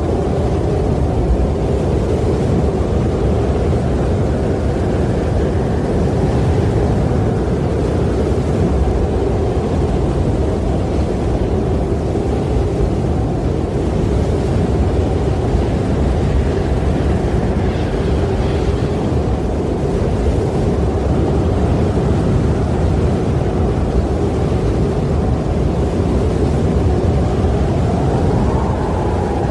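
Strong wind blowing steadily, a dense low rush with a faint whistling tone held through it that rises a little near the end.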